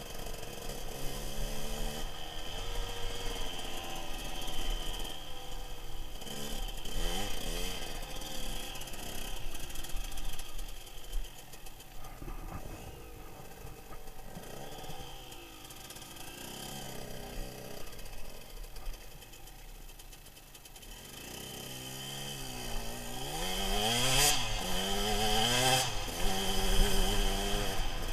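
Dirt bike engine being ridden over gravel, its pitch rising and falling as the throttle is opened and closed, through a helmet-mounted microphone. It runs softer in the middle and revs up and down harder near the end.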